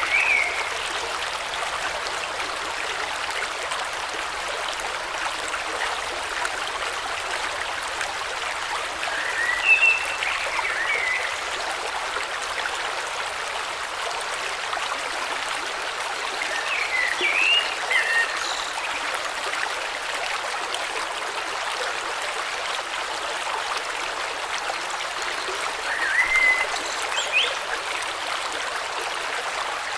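River water flowing steadily, with a bird singing short chirping phrases about every eight seconds, four times in all.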